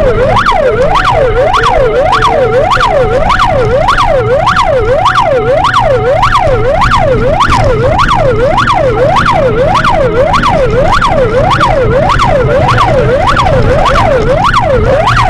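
Loud emergency-vehicle siren in a fast yelp, sweeping up and down about twice a second without a break, with a steady tone alongside it through the first half.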